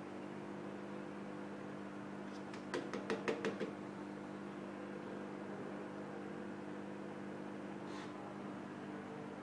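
Steady electrical hum of an aquarium's internal filter and bubbling aeration running. About three seconds in, a quick run of about eight sharp taps lasts about a second.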